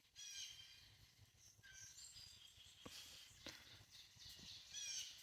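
Faint high-pitched peeping from young chickens: a few short calls near the start, about two seconds in and again near the end, with a couple of soft taps in between.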